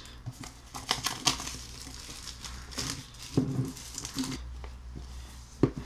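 Plastic wrapping on a cardboard watch box being torn and peeled off by hand: irregular crinkling and rustling with small clicks, coming in scattered clusters.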